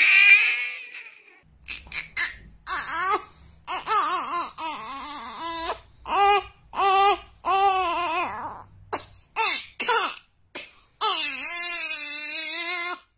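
Newborn babies crying: one cry fades out about a second in, then another newborn cries in short, repeated wails with a wavering pitch, building into a long held wail near the end.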